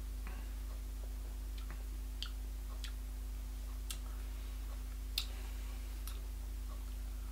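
A steady low hum with a handful of faint, irregular clicks and ticks. The sharpest click comes about five seconds in.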